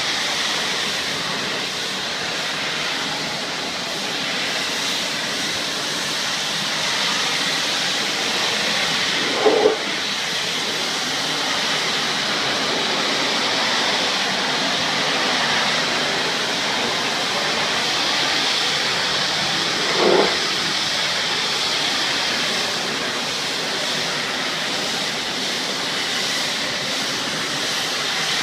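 High-pressure water spray from a pressure-washer wand blasting wooden deck boards: a steady, loud hiss. Twice, about ten seconds apart, a brief louder low blip cuts in over the spray.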